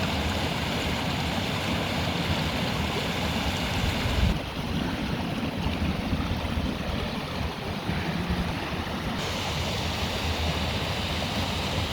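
Waterfall rushing steadily, an even wash of falling water, with a brief low bump about four seconds in.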